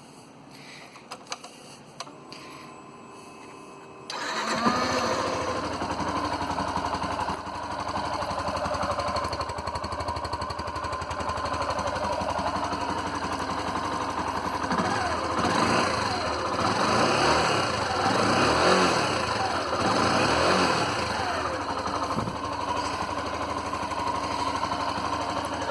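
Yamaha Fazer 150 motorcycle's single-cylinder four-stroke engine, on its stock exhaust, starting about four seconds in and then idling. In the middle it is revved several times, the pitch rising and falling with each blip of the throttle.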